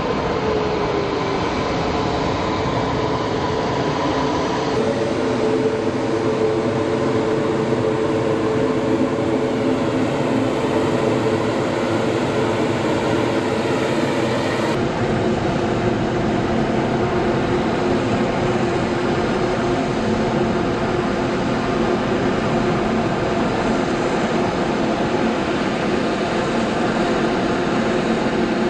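Jet airliner engines running, a loud steady drone and whine with held tones. The sound shifts abruptly about five and fifteen seconds in.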